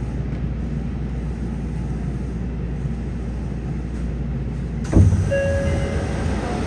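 Steady low hum of a stopped Yokohama subway 3000R-series car, then about five seconds in its sliding doors open with a sudden loud knock followed by a short steady tone.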